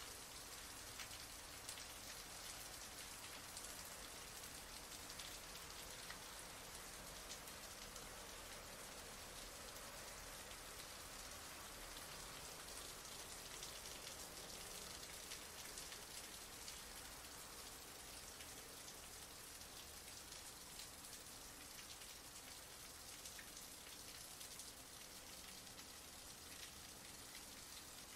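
Heavy rain falling steadily: a dense, even hiss of drops with fine patter, unchanging throughout.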